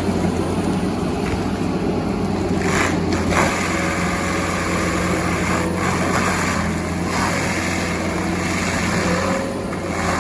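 A large forestry mulcher's diesel engine running steadily under load, with a few short, sharp cracks over its grinding noise.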